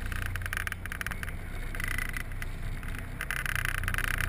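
Sportfishing boat's engine running with a steady low hum, under a loud rasping hiss that swells about a second in and again after about three seconds.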